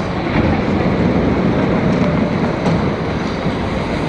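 Metro train running at the platform: a steady low noise that grows a little louder about half a second in.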